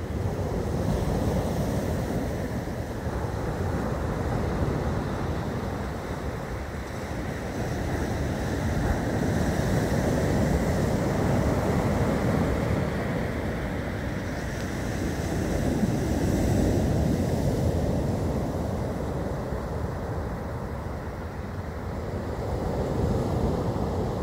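Storm surf breaking and washing up the shore, the noise swelling and easing every few seconds as each set of waves comes in, with wind buffeting the microphone.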